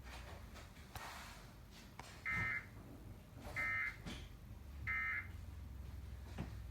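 Emergency Alert System digital data tones from a required weekly test: three short, identical warbling bursts a little over a second apart, faint over a low hum.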